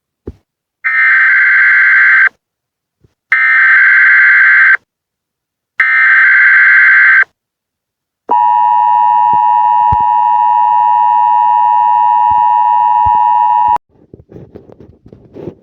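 Emergency Alert System header: three buzzing bursts of SAME digital data tones, about a second and a half each with short gaps, then the EAS attention signal, a steady two-note tone held for about five and a half seconds that cuts off suddenly.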